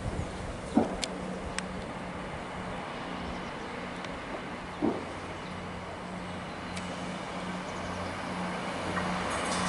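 Approaching Class 158 diesel multiple unit: a steady low diesel engine drone that grows louder towards the end as the train draws near. Two short sharp noises break in, about a second in and about halfway.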